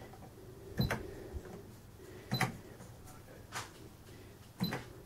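Sharp XE-A307 cash register keys being pressed one at a time to enter letters, four presses about a second apart, each a short click with a brief high beep.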